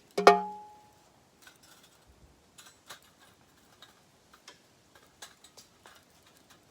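Small metal camp gear being handled: one sharp clink about a quarter second in that rings briefly with a metallic tone, then a scatter of light taps and clicks.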